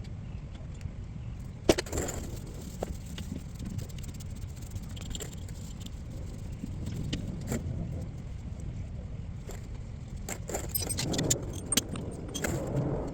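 Metal hand tools clinking and knocking on the drive shaft's strap-bolt hardware, irregular sharp clicks over a steady low background rumble, busiest near the end.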